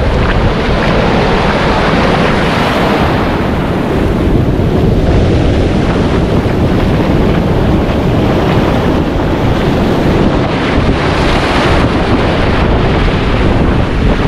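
Ocean surf breaking and foamy wash running up over sand, steady and loud, with wind buffeting the microphone.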